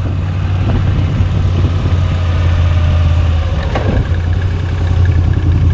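Moto Guzzi V85 TT's air-cooled transverse V-twin running steadily, heard on board while the bike rolls along at low speed. There is one short click about two-thirds of the way through.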